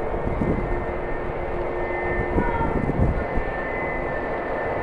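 Jet airliner engines running with a steady whine, over low gusty wind rumble on the microphone.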